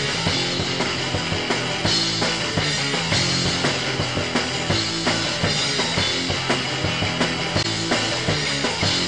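Background rock music with a steady drum-kit beat.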